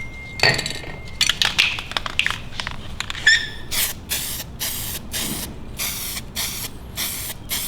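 Aerosol spray can of SEM self-etching primer: a few clicks and rattles, then a run of short, light spray bursts, about two a second, from about four seconds in, laying a light primer coat on a masked door lock bezel.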